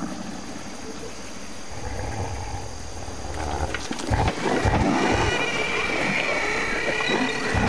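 A flock of small pterosaurs (Rhamphorhynchus) shrieking with high, overlapping calls as they scatter off a beach. Before that there is a low rumble, then a few heavy thuds about four seconds in, as the Eustreptospondylus theropod moves in among them.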